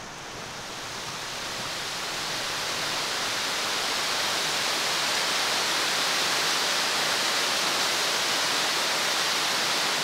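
Waterfall rushing down steep rock slabs, a steady roar of water that swells over the first few seconds and then holds even.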